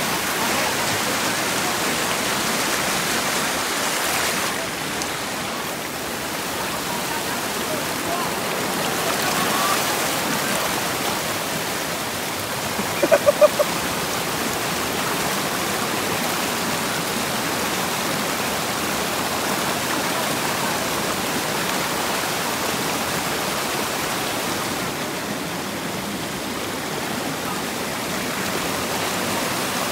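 Steady rush of water flowing in a mountain stream. A quick run of about four short, high pips comes just before the middle.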